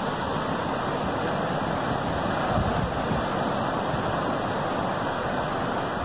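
Atlantic Ocean surf breaking and washing up the beach: a steady rushing noise.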